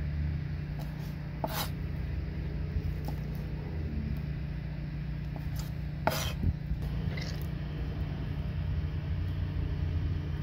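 Cleaver chopping squid tentacles on a plastic cutting board: a few sharp knocks, the loudest about one and a half and six seconds in, over a steady low rumble.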